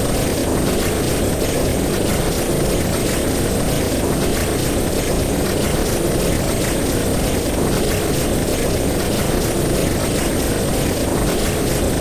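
Sci-fi space-travel sound effect: a loud, steady low rumble of noise with a faint high whine held above it, meant as the sound of travelling through the cosmos at high speed.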